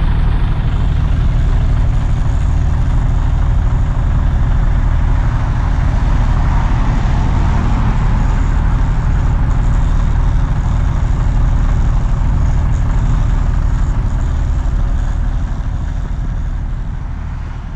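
Heavy diesel engine running steadily at idle, a low even drone that fades out near the end.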